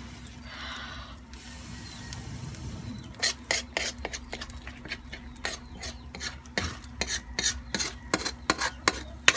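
Metal spoon scraping and stirring in a wok of frying sardine-and-egg omelette. The pan sizzles steadily at first, then sharp scrapes come several times a second from about three seconds in.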